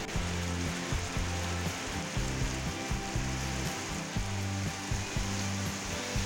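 Heavy rain pouring down steadily as a dense hiss. A background music track with a low bassline and a regular beat runs under it.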